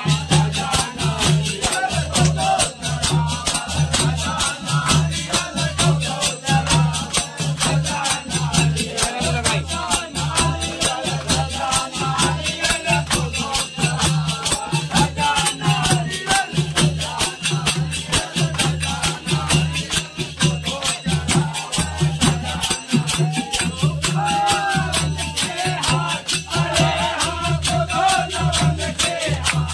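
Group of men singing a phag, a Holi folk song, to dholak drums and hand clapping, over a fast, steady percussive beat that runs without a break.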